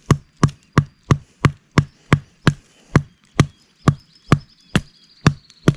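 A stick of wood used as a mallet, knocking a wooden stake into the ground to set it firm as a snare trigger's base. About fifteen sharp wooden blows land at a steady pace of roughly three a second, spacing out slightly near the end.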